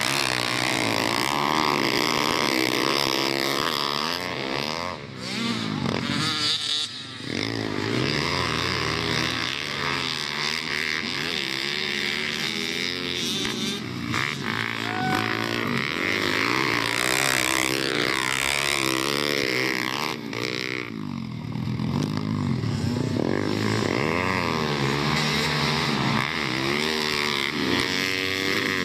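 Several pit bikes racing on a dirt track, their small four-stroke single-cylinder engines revving up and down over and over as they accelerate out of turns and shift, several engines overlapping.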